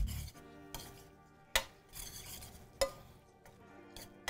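Metal spoon stirring caramelized onions in a stainless steel sauté pan, knocking sharply against the pan a few times, loudest twice in the middle.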